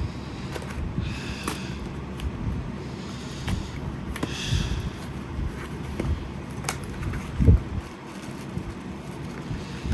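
Packaging being unwrapped by hand: plastic crinkling in two short spells, with scattered clicks and knocks, the loudest a thump about seven and a half seconds in.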